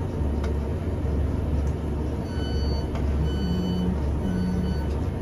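Class 150 Sprinter diesel multiple unit standing at a platform with its underfloor diesel engine idling, a steady low hum. About two seconds in, a repeating high electronic beep starts, sounding in short even pulses.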